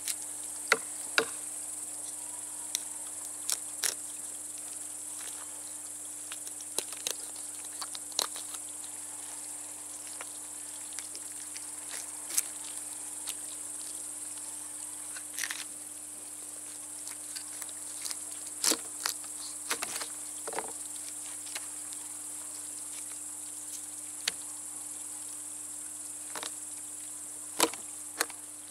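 Knife scraping scales off crucian carp and knocking on a wooden board, in irregular sharp clicks and short scrapes. Underneath runs a steady high chirring of insects.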